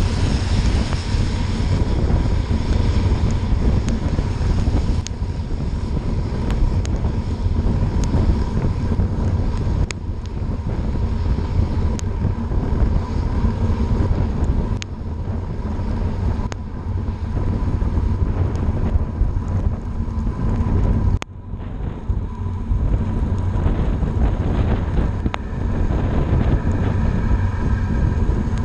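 Heavy wind buffeting on a bike-mounted camera's microphone while riding at about 30 mph in the rain, over the noise of tyres on wet road. A vehicle passing in the first few seconds adds a hiss of wet spray, and a few sharp clicks come through.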